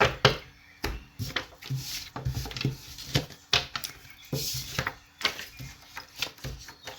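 A deck of reading cards being shuffled and handled: irregular sharp snaps and taps.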